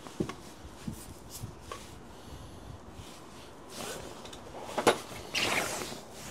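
Gloved hands working the rear ABS sensor wire and its plastic clips on the suspension: a few light clicks, then a short rustling scrape about five seconds in.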